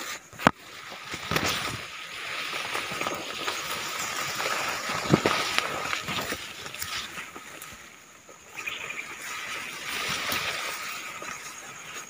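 Leaves and stems rustling and brushing as someone pushes on foot through dense shrubs, with a few sharp cracks like snapping twigs, the loudest about half a second in and another about five seconds in.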